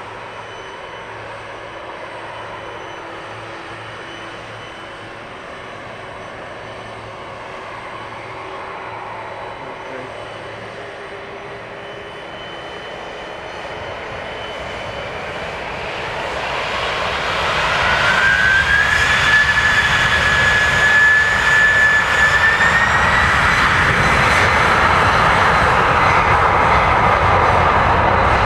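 Jet airliner engines: a steady hum for the first half, then swelling and loud from about two-thirds in. A high engine whine climbs in pitch, holds, then climbs again, as the engines spool up.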